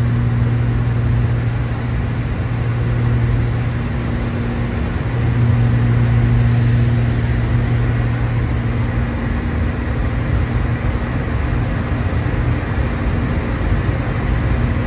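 The twin turbocharged engines and propellers of a Cessna T310R droning steadily in flight, heard from inside the cabin as a loud low hum that swells slightly about five seconds in.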